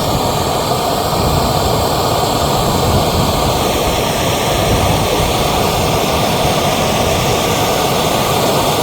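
Handheld gas soldering torch burning steadily, its flame heating a copper pipe joint before soldering.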